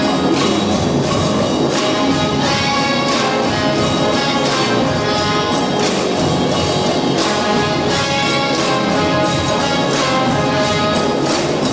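Symphony orchestra playing a lively song with djembes and congas keeping a steady beat: sustained strings and brass over regular drum strokes.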